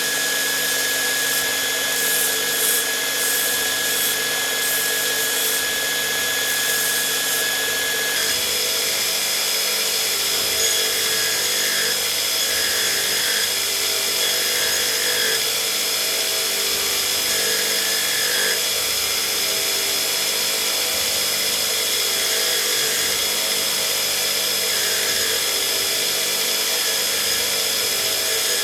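An electric power tool running steadily, its tone shifting about eight seconds in, as it works metal for a sword guard.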